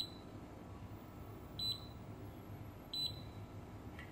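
Digital multimeter on its diode/continuity range giving three short, high beeps as the probes touch the MOSFET's pins. The beep marks a near-zero reading across the pins, the sign of a short-circuited MOSFET.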